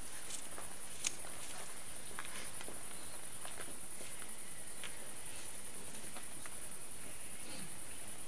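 Crickets chirping in a steady, high trill, with scattered faint ticks and knocks and one sharper click about a second in.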